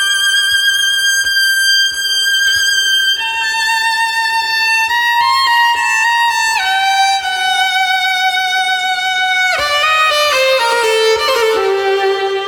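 Solo violin playing long, high held notes with vibrato, each step a little lower. About nine and a half seconds in there is a fast run down into lower notes.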